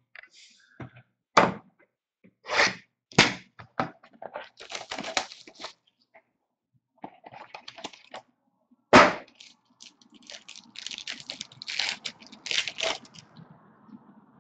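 Trading-card packaging handled on a tabletop: several sharp knocks and taps, and two stretches of crinkling as a foil-wrapped card pack is opened.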